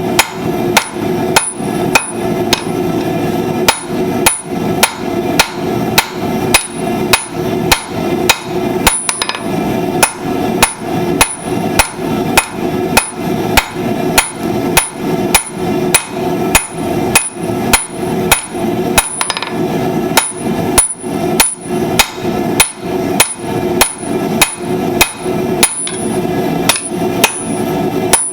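Blacksmith's hammer striking hot steel on an anvil, forging tongs, in a steady rhythm of about two blows a second, with a high ring after the blows. A steady hum runs underneath.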